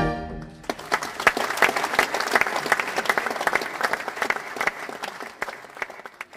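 A big band's final chord of trumpets, trombones and saxophones dies away, then an audience applauds. The clapping thins out and fades near the end.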